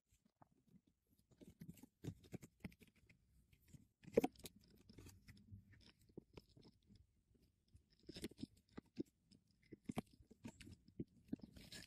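A cat close to the microphone making faint, scattered crunching clicks, with a louder cluster about four seconds in and another run of clicks around eight to nine seconds in.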